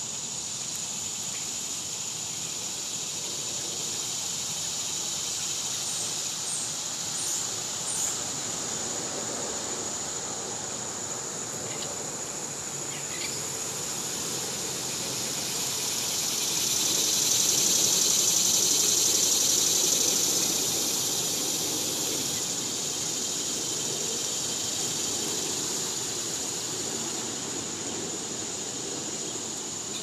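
Summer insect chorus: a steady high-pitched drone, with a cicada's buzz swelling up about halfway through and dying away some five seconds later. A few faint high chirps come in the first half.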